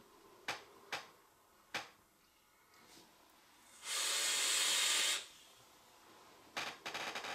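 A long draw on an e-cigarette: a hiss of air pulled through the atomizer for about a second, starting about four seconds in. There are a few sharp clicks before it and a quick run of clicks near the end.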